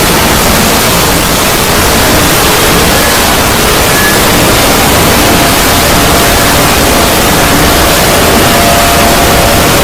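Loud, steady static-like hiss spread evenly from deep to very high pitches, with no rhythm or break: a 'void' sound effect.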